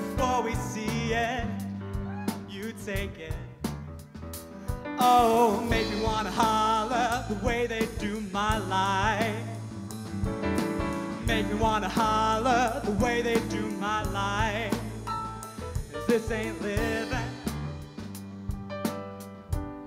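Live band music: drums and bass under a lead singer holding long, wavering notes. The band grows fuller and louder about five seconds in.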